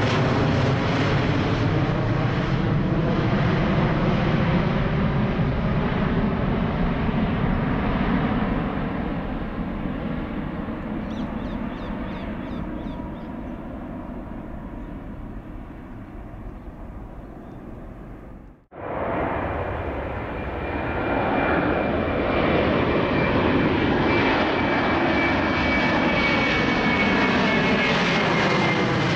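Airbus A350-1000's twin Rolls-Royce Trent XWB jet engines at take-off climb power, loud overhead and then fading steadily as the airliner climbs away. After an abrupt cut about two-thirds in, an Airbus A330-200's twin jet engines grow louder as it climbs towards and over the listener, with a high whine over the roar.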